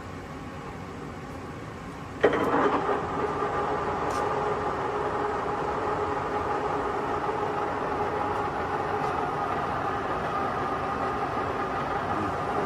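Timemaster gap bed engine lathe's spindle engaging suddenly about two seconds in, then running steadily with a whine from the headstock gearing.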